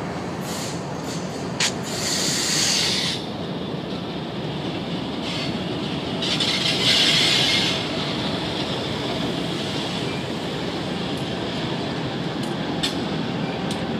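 CSX freight train led by EMD SD40-2 diesel-electric locomotives with two-stroke 16-cylinder engines passing close by, the engines running and the wheels rumbling on the rails. Scattered sharp clicks, mostly near the start and a few seconds before the end, and two bursts of hiss, one about two seconds in and one about seven seconds in.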